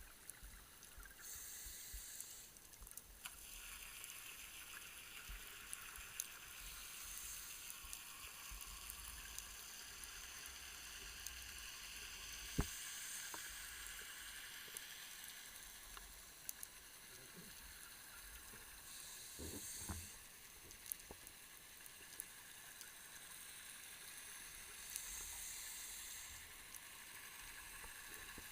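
Underwater sound of a scuba diver breathing through a regulator: a hissing breath with a burst of exhaled bubbles roughly every six seconds, over scattered faint clicks.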